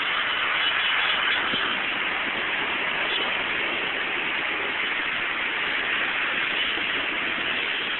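Heavy rain falling steadily on a road as an even hiss, with road traffic passing through it.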